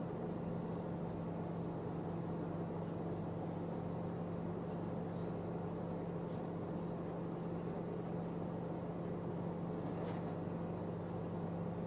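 Steady low electrical hum with an even hiss underneath, a few faint soft clicks now and then.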